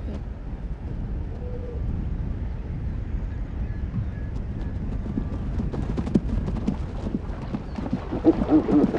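Male lions attacking hyenas: a low rumble with scattered scuffling thuds, then wavering animal cries starting near the end.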